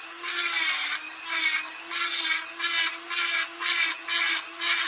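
High-speed rotary grinder running with a steady whine while its bit is worked in short strokes, about two a second, grinding down and smoothing ledges inside a chainsaw's ports.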